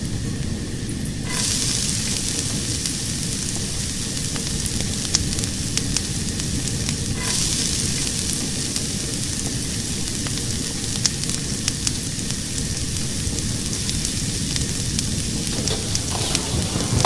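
Fire burning: a steady rushing hiss with scattered small crackles and pops. The hiss grows louder about a second in.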